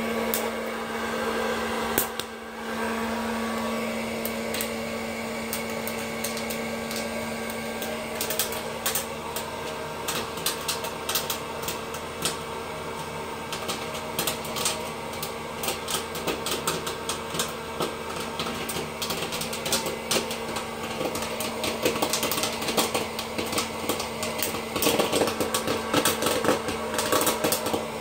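Hot-air popcorn popper running with a steady fan hum while the kernels pop: scattered pops start about eight seconds in and come faster and faster toward the end.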